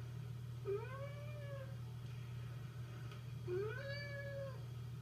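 A black cat meowing twice, each meow about a second long, rising in pitch then levelling off and falling away, over a steady low hum.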